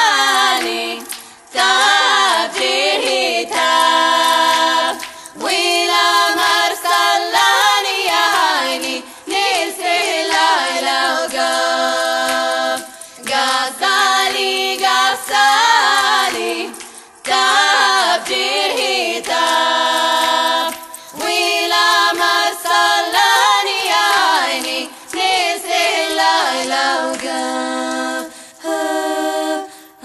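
Choir singing without instruments, in phrases broken by short pauses every few seconds.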